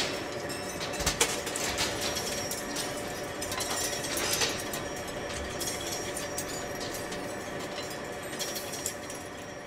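Large metal lathe turning a steel shaft: a steady machine sound with a few steady tones, and scattered sharp clicks all through it.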